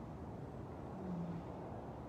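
A lioness grunting: one deep, slightly falling grunt about a second in, part of a slow series about every second and a half, the kind that ends a lion's roaring bout.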